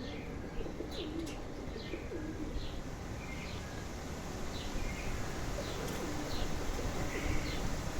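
Garden birds chirping in short high notes repeated about once a second, with a few low cooing calls about a second in and again around five to six seconds in.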